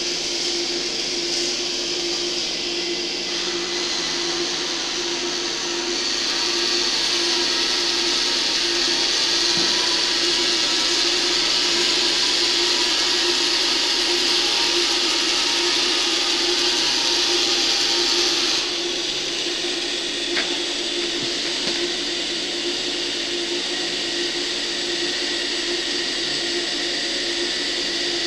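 Small electric gear motors whirring steadily with a constant hum. The sound gets louder from about six seconds in and drops back sharply around eighteen seconds.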